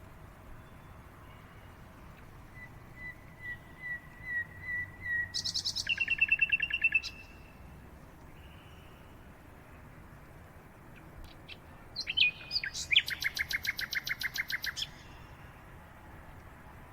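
A bird singing two phrases over faint background hiss. The first starts as a run of evenly spaced notes that grow louder and ends in a fast trill. The second comes about five seconds later and is a fast, loud trill lasting about three seconds.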